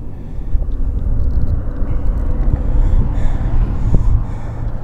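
Low rumble of road traffic crossing the bridge, uneven and continuous.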